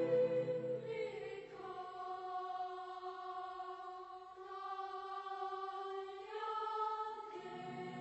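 Background music: a choir holding long, slow notes that shift pitch every second or two. The low part drops out about a second in, leaving higher voices, and comes back near the end.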